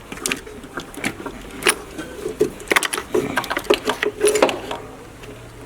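Quick metallic clicks and knocks from the cherry-picker engine hoist and the hanging engine as it is lowered into the engine bay, running together into a fast irregular rattle through the middle.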